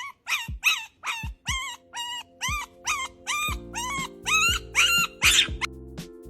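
A puppy yipping and whining in a quick run of short, high cries, about two to three a second, which stop about a second before the end. Background music with a steady beat plays under it and fills out with held notes about halfway through.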